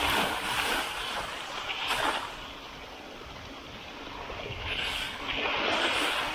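Mountain bike tyres rolling and splashing through a flooded, muddy track, a hissing swish of water and mud spray. It swells near the start, again about two seconds in, and from about five seconds on, easing off in between.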